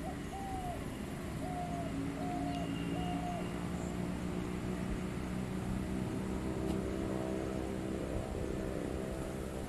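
Steady drone of an engine not in view, holding one even pitch, with four short calls on one note in the first few seconds.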